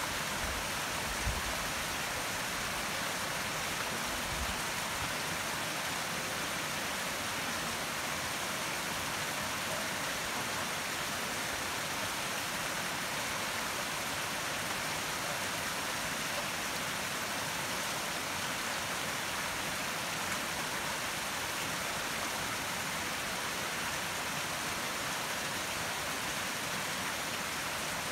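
Steady rushing of a nearby river: a continuous, even noise of flowing water.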